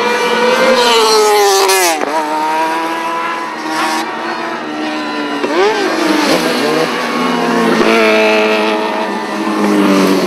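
Sport racing motorcycle engine running at low road speed and revving, its pitch rising and falling with the throttle, with a sharp drop and climb about two seconds in and another a few seconds later.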